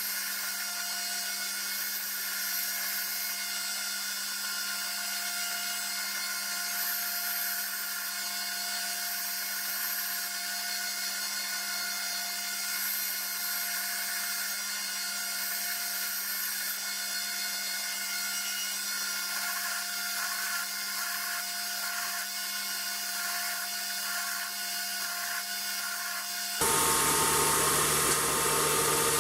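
Belt grinder running with a steady motor hum while steel is ground against its abrasive belt. Near the end the sound changes abruptly and becomes louder.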